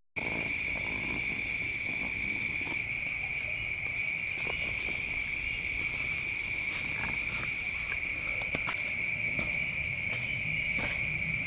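Night insects chirping: one steady high-pitched trill with other insects chirping in quick pulsed runs above it.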